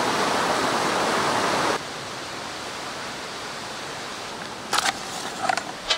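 Steady rushing of a stream or small waterfall that cuts off abruptly after about two seconds. Quieter forest ambience follows, with a few short sharp flaps and rustles of a heavy canvas tarp being handled near the end.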